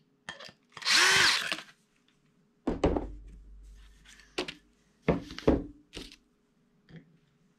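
Cordless drill run once, a short rising whir about a second in, as the screw holding the wooden mounting board to the bass is driven out. Then several wooden knocks and clunks as the board is handled and laid on the table.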